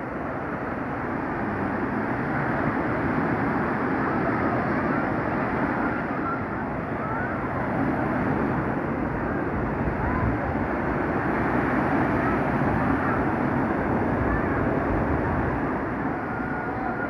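Rough surf breaking on a beach: a steady rush of waves that swells and eases slowly, with faint distant voices.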